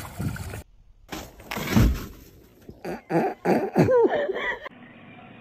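A heavy thump as a person drops into deep snow, followed by a few short vocal cries that slide up and down in pitch.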